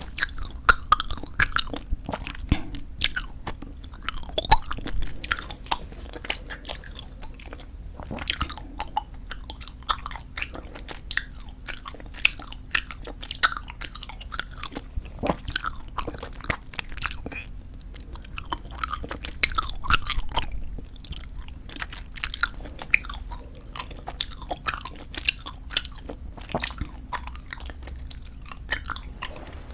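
Squeezable tube bubblegum chewed close to the microphone: irregular wet smacks and sticky clicks of the gum in the mouth.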